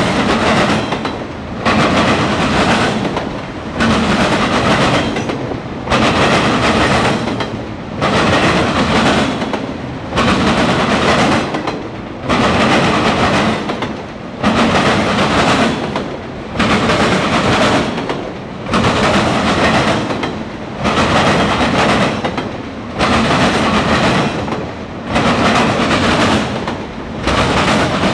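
Autorack freight cars of a CSX train rolling past close by, steel wheels clattering on the rails. The clatter comes in loud surges, one about every two seconds, in time with the passing cars.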